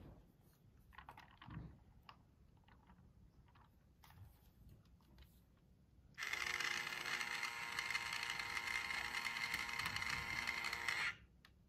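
A few light clicks, then about six seconds in a toy battery drill's small electric motor starts whirring steadily as it drives a plastic peg into a pegboard. It runs for about five seconds and cuts off suddenly.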